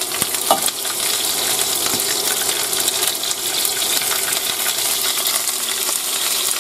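Sliced onions and bell peppers sizzling in hot peanut oil in a nonstick pan, a steady hiss full of small crackles, while a silicone spatula stirs them.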